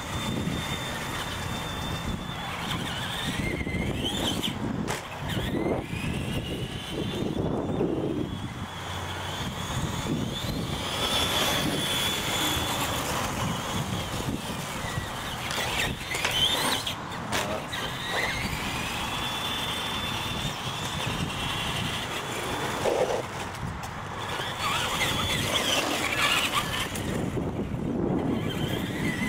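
Electric R/C monster trucks' motors and gears whining, the pitch rising and falling again and again as they speed up and slow down.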